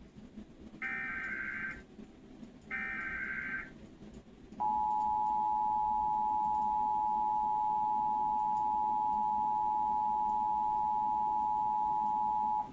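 Emergency Alert System broadcast: the last two bursts of the SAME digital header, each a harsh buzzy data screech about a second long with a short gap between. About a second later the EAS two-tone attention signal starts, a steady dual-tone alarm that holds for about eight seconds and then cuts off.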